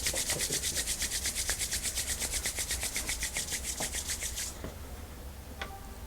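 Hands rubbing quickly back and forth in rapid, even strokes, about nine a second, stopping about four and a half seconds in. A small click follows near the end.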